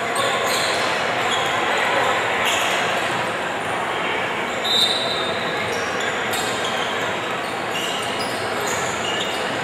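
Basketball game sounds: a ball bouncing on a hardwood court and players' shoes moving over a steady background of crowd chatter in a large gym. A sneaker squeaks briefly about five seconds in.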